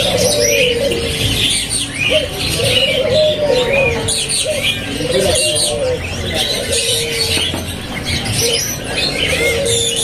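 Barbary doves (local puter) cooing in repeated phrases, with smaller caged birds chirping and twittering high above them.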